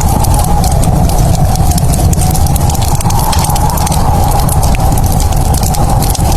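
Wood fire crackling in a fireplace, dense quick pops over a steady low rumble.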